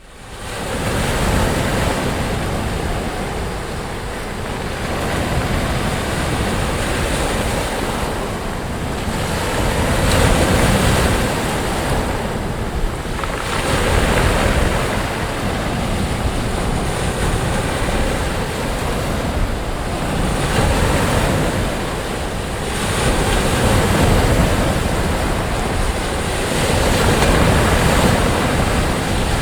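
Sea waves breaking and washing up on a sandy beach, a continuous surf that swells and eases every few seconds, with some wind noise on the microphone.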